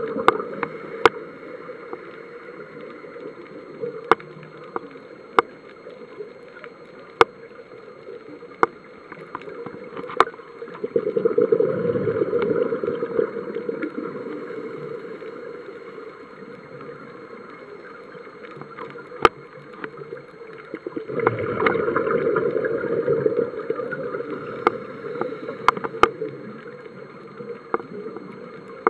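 A scuba diver's breathing through the regulator, heard underwater: exhaled bubbles rush out in long bursts about ten seconds apart, one trailing off at the start, one about eleven seconds in and one about twenty-one seconds in, with quieter stretches between. Scattered sharp clicks come through the whole time.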